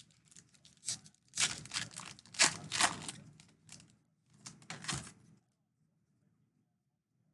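Donruss baseball card pack wrapper being torn open and crinkled: a run of irregular ripping and rustling over about five seconds.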